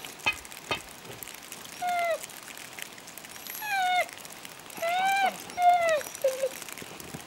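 Hunting dog barking: about five short yelps, each falling in pitch, spaced unevenly, with two sharp clicks in the first second.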